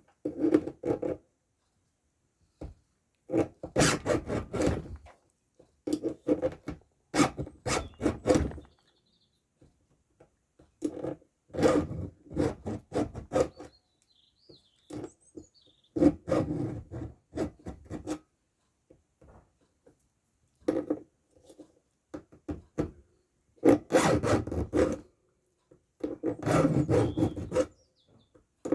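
A hand file being pushed across the cutter teeth of a chainsaw chain: rasping filing strokes in short bursts of several quick strokes, with brief pauses between bursts as the next tooth is set up.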